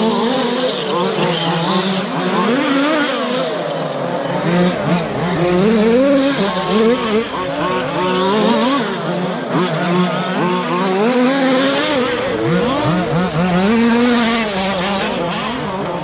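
Several radio-controlled short course trucks racing together, their motors whining up and down in pitch as they accelerate and brake around the track, the whines overlapping.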